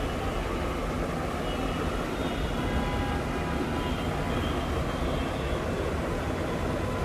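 Small battery-powered pump motor of a toy doll bathtub running steadily as it pumps water out through the shower, a continuous hum with a faint whine.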